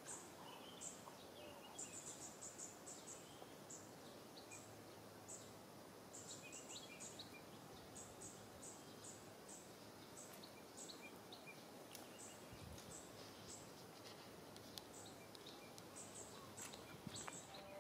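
Near silence: faint outdoor ambience, a soft steady hiss with short, high-pitched chirps coming irregularly throughout.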